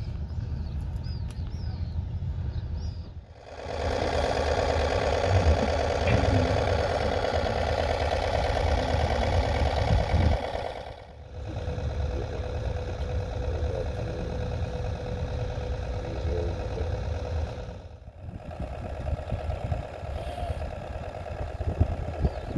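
Fishing boat's engine running steadily at idle, a low rumble with a faint steady hum. It is louder and busier between about 4 and 11 seconds in, and drops briefly three times.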